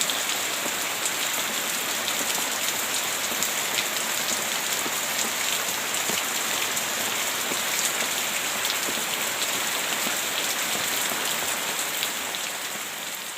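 Heavy rain falling steadily: a dense hiss of countless drops striking a surface, beginning to fade out near the end.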